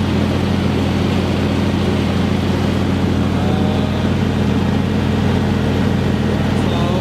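John Deere 100 series riding lawnmower engine running steadily at an even pitch.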